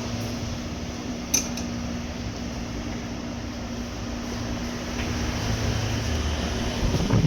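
Vintage Jetcool BF-148A box fan running, a steady rush of air with a low motor hum. A single short click about a second and a half in.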